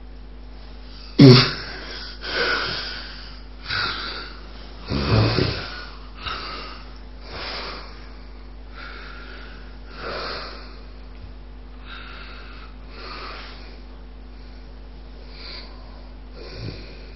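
Sleeper with severe obstructive sleep apnea snoring: a sudden loud snort about a second in, then a run of quick, noisy snoring breaths, about one a second, that grow fainter. This is typical of breathing restarting after an obstructive apnea.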